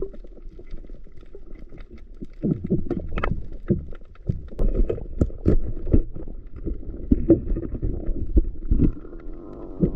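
Muffled underwater noise from a camera held below the surface: a low rumble of moving water with irregular clicks and knocks, and a short bubbling gurgle near the end.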